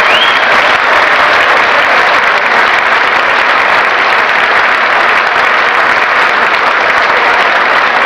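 Audience applauding and cheering, steady and loud, with a short rising whistle right at the start.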